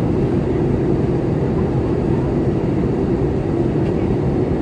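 Airliner cabin noise in flight: the steady, low-pitched drone of jet engines and airflow heard from a window seat.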